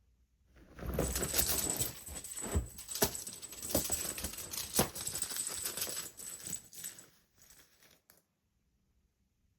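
A cat wand toy rattling and jingling in rapid clatter during play, with several sharp knocks; it stops about seven seconds in.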